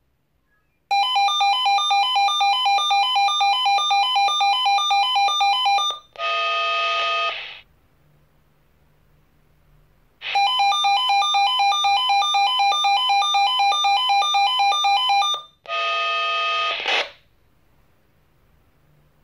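Swissphone Quattro XLSi analog radio pager sounding its test-alarm alert: a loud, rapid beeping melody stepping between 800, 1010 and 1200 Hz in an ABACABAC pattern for about five seconds, then a short steady chord of several tones. The sequence plays twice.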